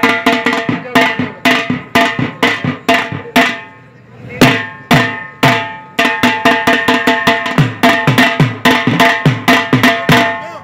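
Drums being beaten in a loud, driving rhythm, about three strokes a second, with a short break about four seconds in. The strokes ring on with steady tones, and the deep strokes slide down in pitch.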